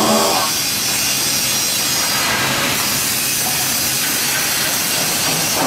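Cantilever single-twist wire stranding machine running at speed: a steady, loud whirring hiss that does not change.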